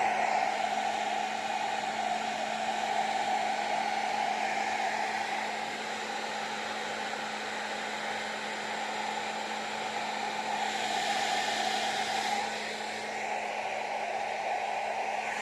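Hair dryer blowing steadily, with a faint motor hum under the rush of air, a little quieter from about six seconds in.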